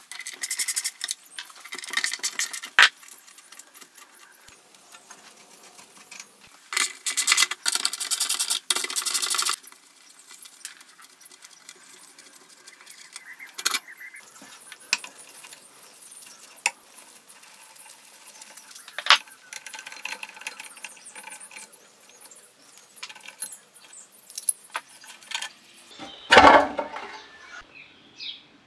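Hand tools taking apart a rusty small tiller engine: a socket ratchet clicking in quick runs, metal bolts and parts clinking, and one heavier knock near the end.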